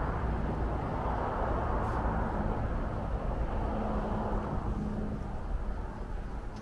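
Steady road noise of a moving car, a low rumble with a faint hum, easing slightly near the end.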